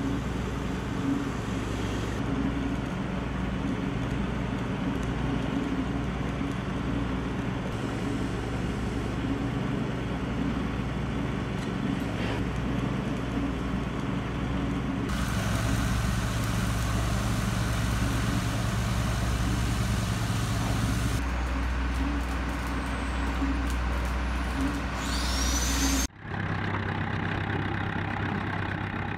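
Engines and machinery running steadily with a low hum, the sound changing abruptly several times. In the last few seconds a farm tractor's engine runs as the tractor drives by.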